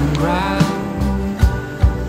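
Background music: a pop song with a singing voice over a drum beat.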